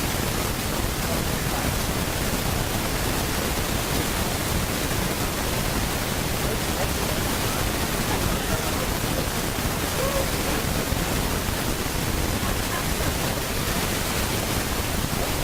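Steady, loud hiss of recording noise covering everything, the fault that makes this a bad-sound recording. Faint voices show through it now and then.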